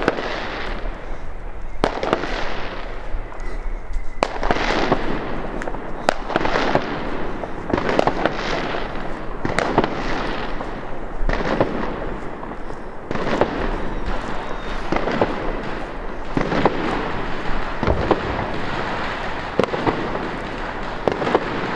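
Firecrackers going off again and again: sharp bangs at irregular intervals, roughly one a second, each with a short echoing tail.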